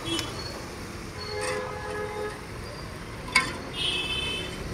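Street traffic noise with short vehicle horn toots: one about one and a half seconds in and a higher-pitched one near the end. A sharp click comes just before the second toot.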